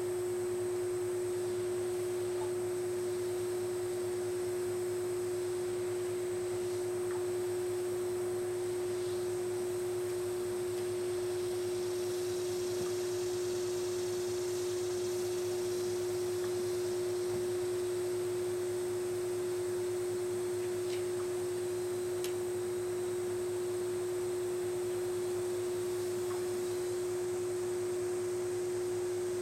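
A steady, unchanging hum at one pitch.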